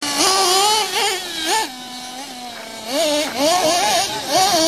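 Kyosho Mad Force nitro monster truck's LRP engine revving, its whine rising and falling with the throttle. About two seconds in it drops to a lower, steadier note, then revs up and down again from about three seconds.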